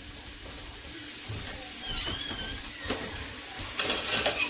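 Steady hiss from the hot, opened air fryer as the cod fillets sit sizzling in the basket, with a few light clicks of handling near the end.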